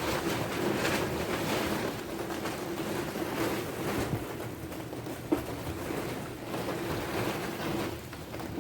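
Strong gusty wind rushing and buffeting the microphone as a storm comes in, with a faint steady hum underneath and a single sharp click about five seconds in.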